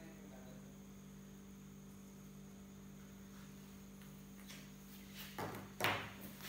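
Steady low electrical mains hum, with a few short thuds near the end.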